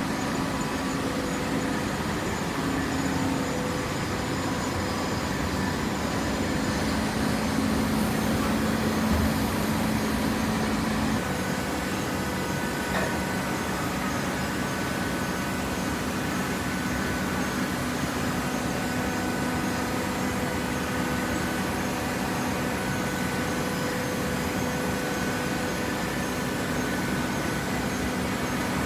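Hydraulic cardboard baler's power unit, its electric motor and hydraulic pump running with a steady hum and whine; the pitch of the hum drops slightly and a new higher whine sets in about eleven seconds in.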